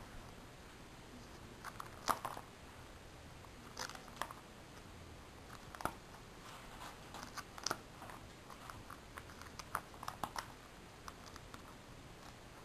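Plastic pocket pages of a trading-card binder crinkling and clicking as they are handled, in irregular scattered crackles.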